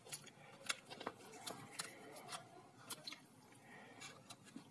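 Faint, irregular small clicks and rustles of alligator-clip leads being handled and clipped onto a portable radio's circuit board.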